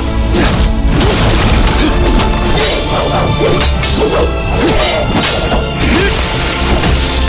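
Action-scene sound effects: a dense run of smashing, whacking impacts and whooshes over background music.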